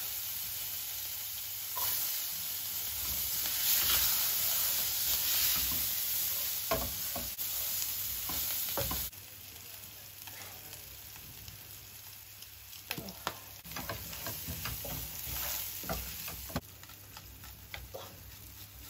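Chopped onions sizzling in hot palm oil in a frying pan, stirred with a wooden spoon. About nine seconds in, the loud sizzle drops to a quieter fry, with scattered taps and scrapes of the spoon against the pan.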